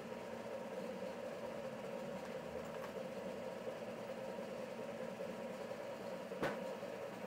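Steady mechanical hum of machinery running, unchanging in pitch, with one sharp click about six and a half seconds in.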